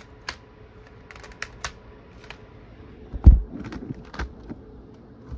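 Plastic CD jewel cases clicking and clacking as they are handled and slid aside, with one heavy thump a little past three seconds in, the loudest sound, and a softer knock about a second later.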